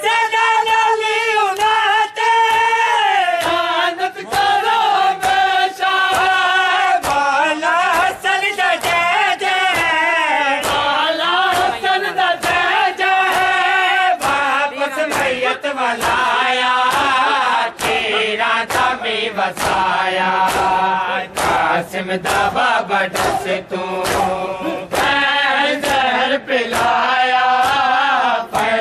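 Male mourners chant a Punjabi noha (lament) in unison. Sharp chest-beating slaps (matam) keep a steady beat under the chant.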